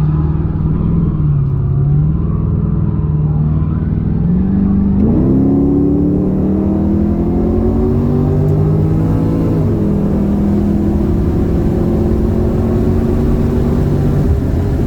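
Holden VX Commodore SS's 5.7-litre LS1 V8, with an aftermarket exhaust and intake, running steadily and then going to full throttle about five seconds in. It revs up under hard acceleration, shifts up just under ten seconds in with a sudden drop in pitch, and pulls up through the revs again.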